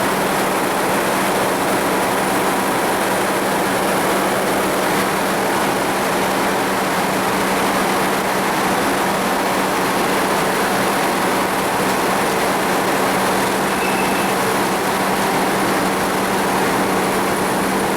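Sawmill machinery running loud and steady, a dense even noise with a constant hum underneath.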